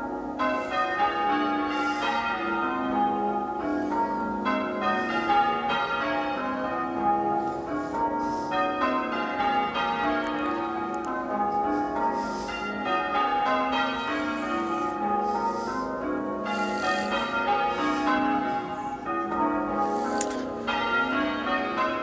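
Church tower bells rung full circle in change ringing, a peal under way: a continuous, even stream of overlapping bell strikes with no break.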